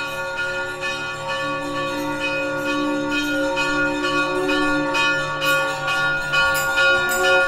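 Brass temple bells rung over and over, a new stroke every fraction of a second, so the ringing notes overlap into a steady clangour.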